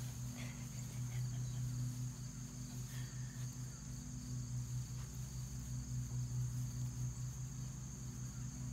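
Steady outdoor background: insects trilling on one continuous high note over a louder, steady low hum.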